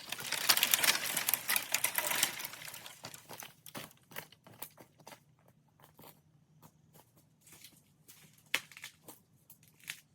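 Dry brush and leaves rustling and crackling for about three seconds, then scattered snaps and ticks of twigs, with two louder snaps near the end.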